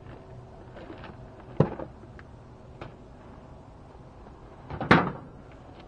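Handling noises from work off camera: a sharp knock about a second and a half in, a louder knock near the end, and a few faint ticks between.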